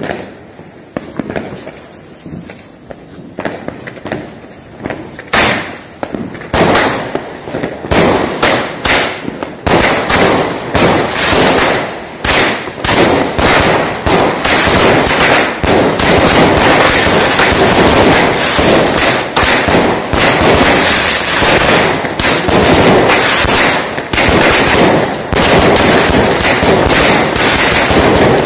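Five consumer fireworks cakes (multi-shot batteries) firing together. After a few scattered pops, rapid volleys of shots launching and bursting start about five seconds in and build into a continuous barrage of bangs and crackle.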